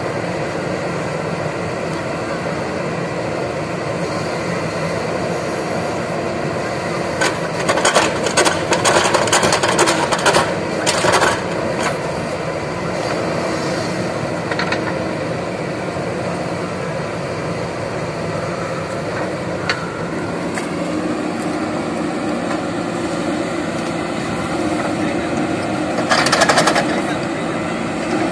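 JCB 3DX backhoe loader's diesel engine running steadily under load as the backhoe digs and swings its bucket, with louder patches of clatter and noise about a third of the way in and again near the end.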